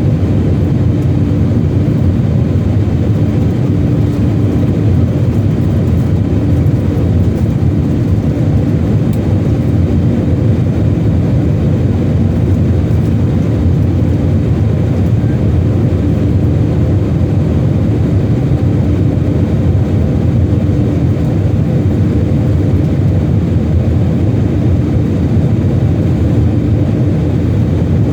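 Steady cabin noise of an Airbus A320 in flight: a constant low rumble of engines and airflow heard from inside the passenger cabin, with a steady hum running through it.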